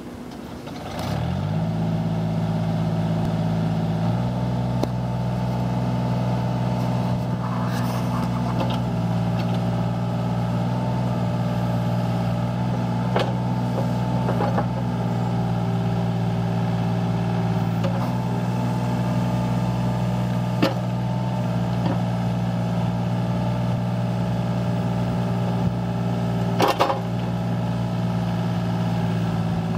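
Takeuchi TB138FR mini excavator's diesel engine running, rising in speed about a second in and again at about four seconds, then holding steady while the hydraulic arm and bucket work, with whining tones that shift as the arm moves. A few sharp clanks come from the bucket and linkage.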